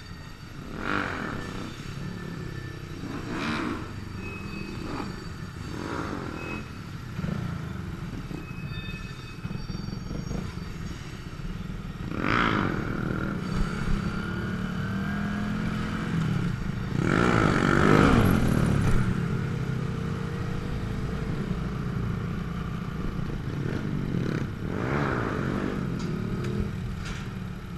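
Small motorcycle's engine running while under way, its revs rising and falling. The engine swells about twelve seconds in, and again more loudly about seventeen to nineteen seconds in.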